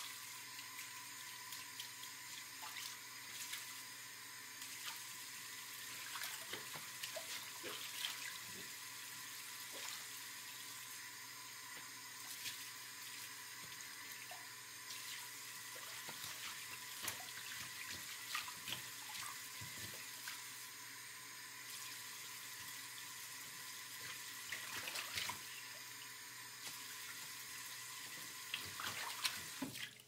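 Kitchen tap running steadily into the sink, with scattered scrapes and light knocks of a sponge wiping the countertop and basin.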